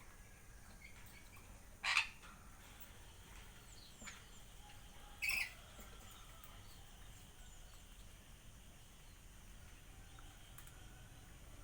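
Parrots giving two short, harsh squawks about three seconds apart, with faint high chirping from other birds.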